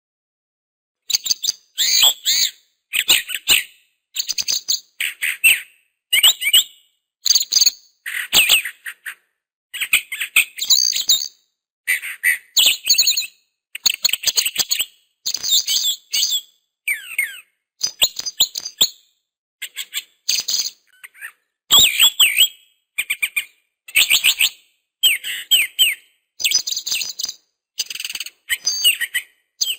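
A songbird chirping in short bursts of quick, high notes, about one burst a second, with dead silence between the bursts.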